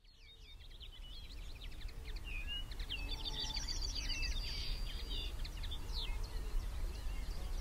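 Many small birds chirping and singing in quick, overlapping phrases over a low steady rumble, fading in at the start.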